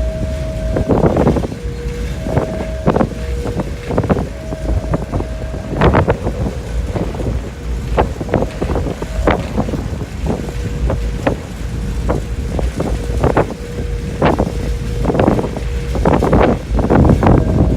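Wind blowing across the stern of the ferry M/V Samish, setting up a steady tone that flips back and forth between a higher and a slightly lower note. Repeated gusts buffet the microphone over a constant low rumble.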